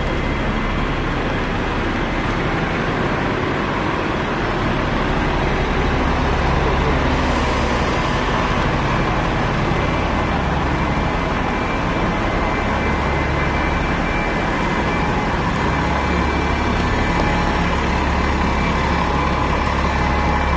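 City street traffic: heavy vehicles' engines running close by over a steady wash of road noise. A deep engine rumble swells about four seconds in and again in the second half.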